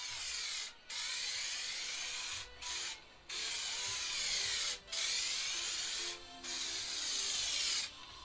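Aerosol spray can hissing in about six bursts of one to one and a half seconds each, with short breaks between them, as the spray is swept back and forth across a board.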